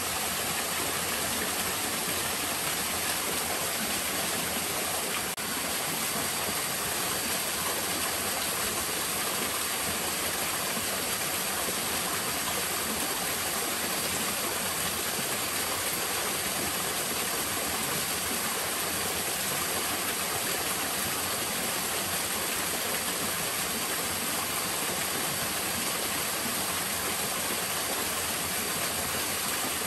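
Small waterfall pouring over boulders into a rocky pool: a steady rush of splashing water.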